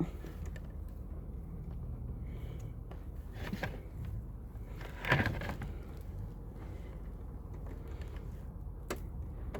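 Scattered clicks and knocks from hands working a blade fuse into a slot in an RV fuse box, over a low steady rumble; the loudest knock comes about five seconds in.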